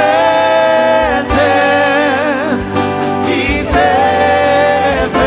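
Gospel choir singing a worship song, holding long notes with vibrato over steady musical accompaniment.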